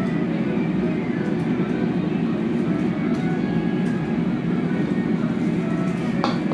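Steady low rumble of a ventilation fan drawing air over a table grill, with a short clink about six seconds in.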